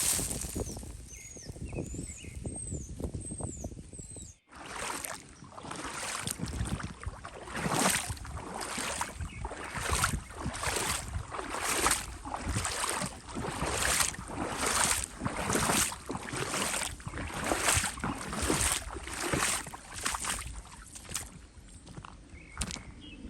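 A few high chirps from small birds, then slow footsteps crunching through dry leaf litter, about one step a second.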